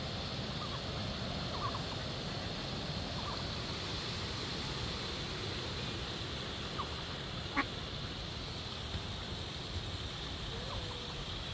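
Steady outdoor background noise with a few faint, brief duck calls from the pond, and one short sharp tap about two-thirds of the way through.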